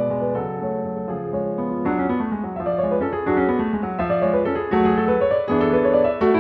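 Solo piano music; from about two seconds in it moves into quick runs of notes.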